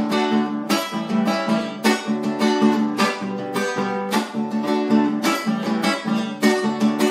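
Music: an acoustic guitar strummed in a steady rhythm, each chord struck and left to ring.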